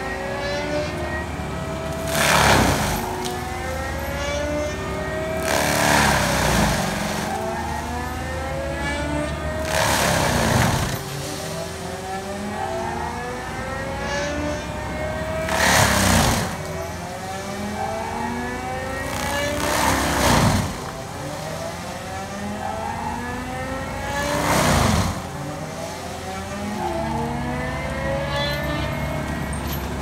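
A diesel ASV compact track loader runs a Gyro-Trac 500 HF mulching head that shreds palm trees, with the engine note rising and falling under load. About six loud bursts of shredding come every four seconds or so, each time the spinning head bites into the palm and throws out chips.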